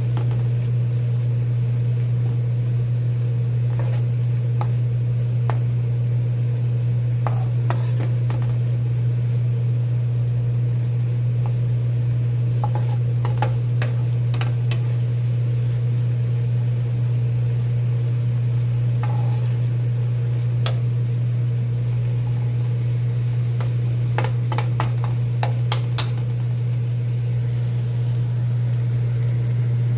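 A metal spoon stirring and scraping dried anchovies and green chili peppers in a nonstick frying pan, with scattered clicks of the spoon against the pan and light sizzling. Under it runs a loud, steady low hum.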